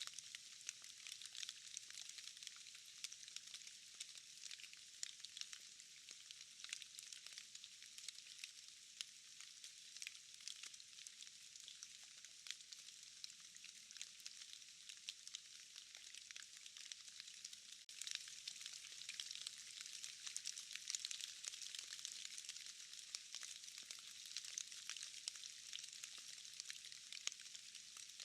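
Steady rain falling, a soft dense hiss sprinkled with many small drop ticks as raindrops drip from trees and moss. It grows slightly louder and fuller about two-thirds of the way through.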